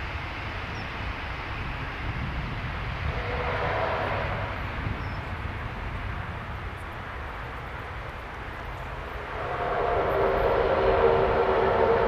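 ATR 72-600's twin Pratt & Whitney PW127M turboprops running as the aircraft rolls down the runway, a steady propeller drone over a low rumble. It grows louder, with the propeller tone stronger, in the last couple of seconds.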